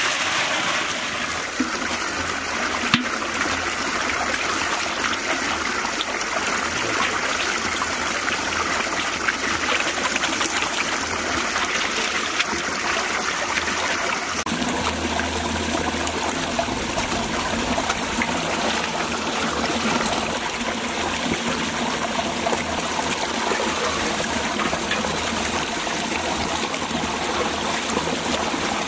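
Water pouring and splashing into a large metal pot as whole dressed chickens are rinsed in it, a steady rush of running water; the sound shifts slightly about halfway through as the birds are lifted out dripping.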